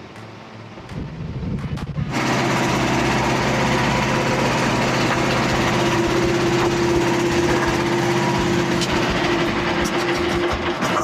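Small gasoline engine of a Frontier portable bandsaw mill. It comes up in speed about a second in and from about two seconds in runs steadily at high throttle.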